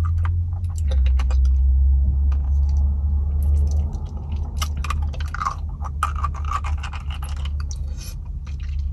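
Wet mouth smacks and sucking on a lollipop, a run of short clicks and smacks, over a steady low rumble inside a car.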